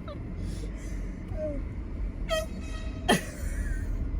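A short blast from a handheld air horn about two seconds in, over the steady low rumble of a car.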